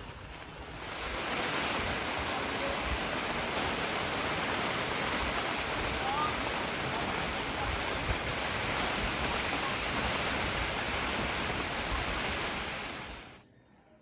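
A steady, loud rushing noise that starts about a second in and cuts off suddenly near the end.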